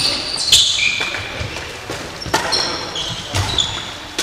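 Badminton doubles rally on a sports-hall floor: sharp racket hits on the shuttlecock, short high squeaks of court shoes on the floor and the thuds of footsteps, echoing in the hall.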